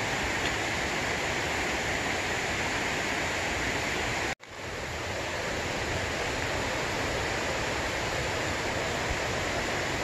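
Steady, even rush of a stream running high with monsoon rain, with no breaks in it. It cuts out for an instant about four and a half seconds in and fades back up.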